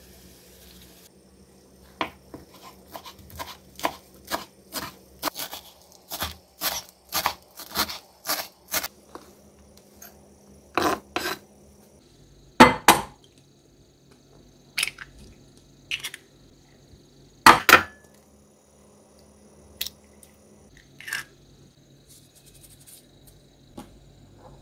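Knife chopping fresh herbs on a cutting board, a quick even run of knocks at about two a second, then two eggs cracked against the rim of a glass bowl, each a sharp knock, with a few lighter clinks of glass in between.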